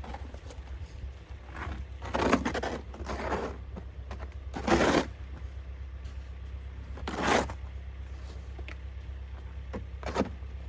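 Several short crunching scrapes in snow, the loudest about five seconds in, over a low steady rumble.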